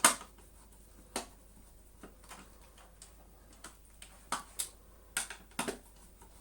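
Screwdriver and screws clicking and tapping against the plastic casing of a Hoover Celebrity vacuum cleaner as it is screwed back together: a loud click at the start, then scattered sharp clicks, several of them close together near the end.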